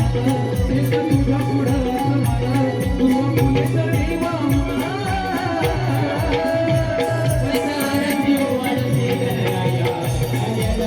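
Konkani naman devotional folk music: a drum keeps a steady beat under jingling cymbals and held low instrumental tones, with a wavering melodic line in the middle.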